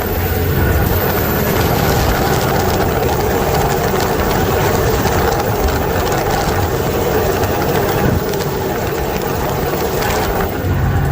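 Heavy truck's diesel engine running steadily as the truck drives, mixed with road and drivetrain noise, with a short dip near the end.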